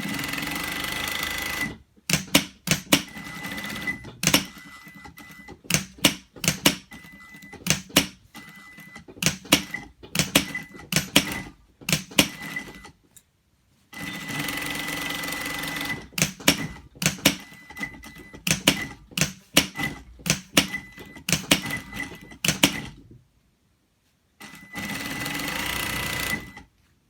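Sewing machine stitching with a steady high whine in three runs of about two seconds each, near the start, about halfway and near the end. Between the runs it starts and stops in short bursts, with many sharp clicks.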